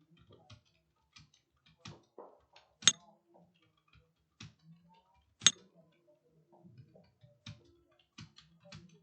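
Computer keyboard keys struck one at a time in an uneven rhythm during a typing test. Two keystrokes, about three seconds in and again some two and a half seconds later, are much louder than the rest.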